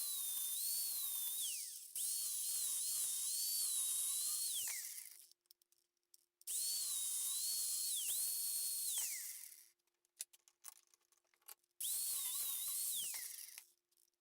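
High-speed rotary cutting tool whining as it cuts a slot into a steel threaded bar. There are four separate runs, each with a pitch that wavers under load and then falls as the tool spins down, with silent gaps between them.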